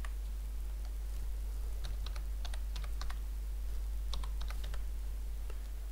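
Typing on a computer keyboard: a few scattered key presses, then two quick runs of keystrokes about two and four seconds in, over a low steady hum.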